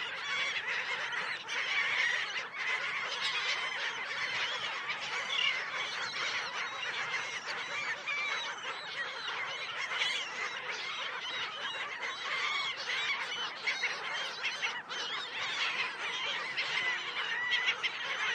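A flock of birds calling, with many short chattering calls overlapping without pause.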